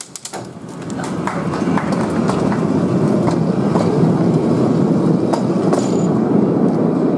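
Miniature Planet 4w battery-electric locomotive and a single carriage rolling past on the track, the steel wheels giving a steady rumble with scattered clicks. The sound builds about a second in and then holds.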